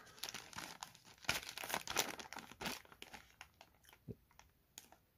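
Thin clear plastic toy bag crinkling as it is handled, a scatter of quick crackles that grows sparser in the last couple of seconds.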